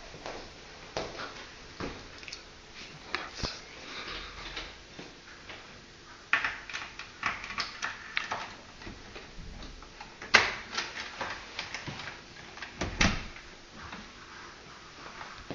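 Irregular clicks, knocks and rustling, with two louder knocks about ten and thirteen seconds in.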